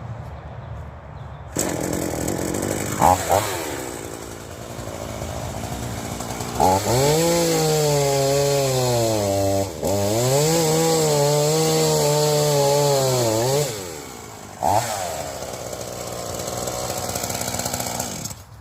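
Petrol chainsaw running, blipped briefly, then at full throttle in two long cutting passes through a log, its engine pitch sagging and recovering as the chain bites, then dropping back to lower running near the end.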